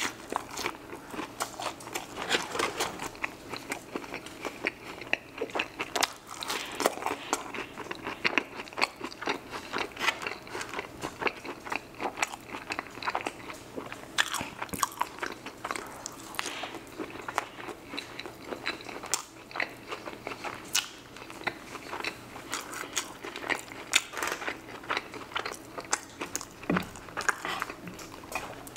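Close-miked eating: crunchy fried chicken wings being bitten and chewed, a steady run of irregular crunches, crackles and wet mouth clicks.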